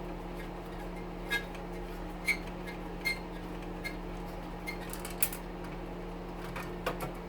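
Scattered light metallic clicks and clinks, about seven at irregular intervals, from an oven being taken apart by hand, over a steady hum.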